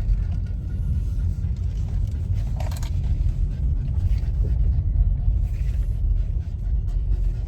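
Steady low rumble of a car's engine and tyres, heard from inside the cabin while driving, with a short brief sound a little under three seconds in.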